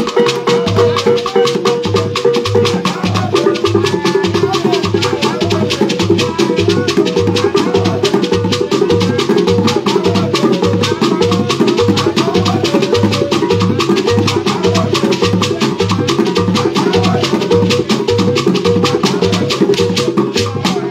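An Igbo traditional percussion ensemble playing live: hand drums struck with a steady, fast beat over rattling shakers.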